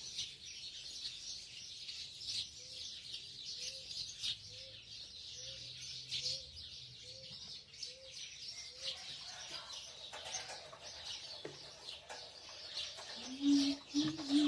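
Small songbirds chirping and twittering continuously. In the middle, a lower bird call repeats about nine times at an even pace.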